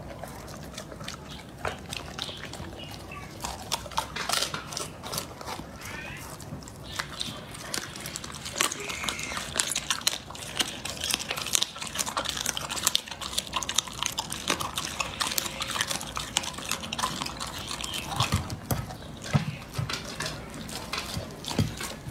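Dog chewing raw meat and bone: wet chewing with many quick, irregular crunches and clicks.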